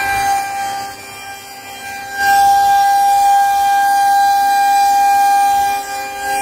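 Federal Signal 2001-130 electronic outdoor warning siren sounding its steady, high-pitched alert tone during a one-minute test. The tone grows fainter about a second in and comes back loud about a second later, then dips again briefly near the end, as the siren's rotating horn sweeps away and back.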